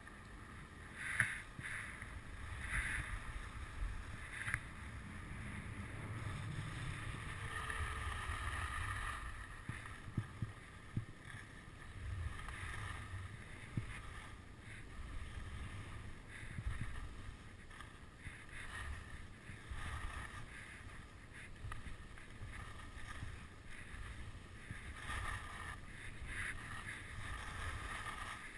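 Wind rushing and buffeting over the microphone of a camera worn by a skier going downhill, with the hiss and scrape of skis on packed snow coming and going.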